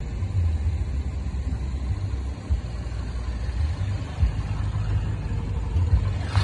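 BMW 316i's 1.6-litre turbocharged four-cylinder engine idling steadily.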